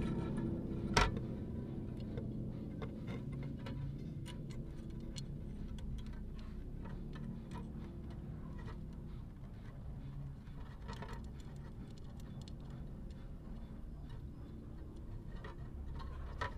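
Light, irregular metallic clicks and ticks from a jeweler's saw blade threaded through a drilled hole in a brass sheet as the saw frame is handled and fitted, with one sharper click about a second in, over a low steady rumble.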